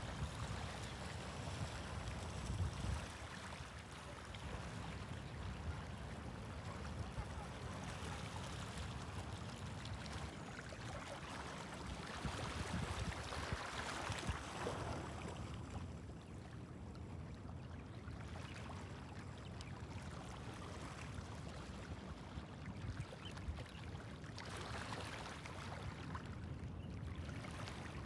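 Small waves lapping and washing over a pebble beach, a soft steady wash that swells up and dies back a couple of times.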